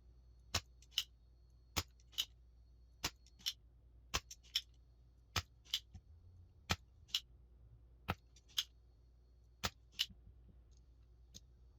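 Spring-loaded desoldering pump (solder sucker) clicking eight times in pairs, about a second between pairs, as it is used on the mouse switch pins; it is not clearing the solder.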